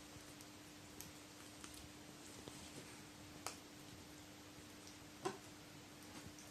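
A few faint, sharp clicks and taps at irregular times, the loudest about five seconds in, over a low steady hum.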